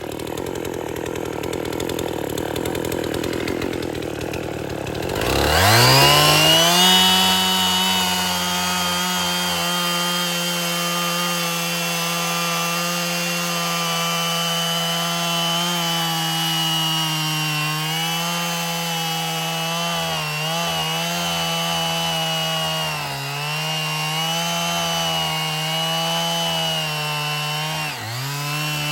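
Husqvarna 55 two-stroke chainsaw revving up about five seconds in and held at high speed, running smoothly, with a few brief dips in pitch in the second half.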